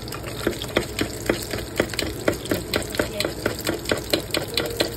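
An egg frying in oil in a small rectangular pan: a steady sizzle with sharp spitting pops, about four a second.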